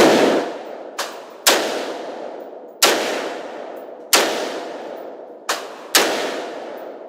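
Gunshots fired one at a time at a range, seven in all at uneven spacing, each with a long fading echo; two of them are fainter than the rest.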